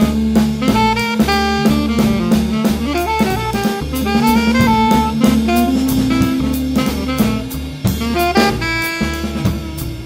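Background music: jazz with a horn melody over a steady drum-kit beat.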